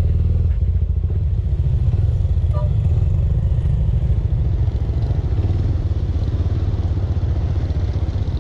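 Small Suzuki motorcycle's engine running steadily under way, heard from the rider's seat, with a fast even pulse low in pitch.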